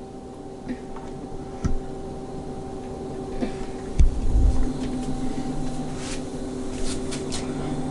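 Lennox Elite furnace blower running on a low circulation speed, a steady hum with a few constant tones that grows a little louder about five seconds in. Two dull knocks come at about two and four seconds in.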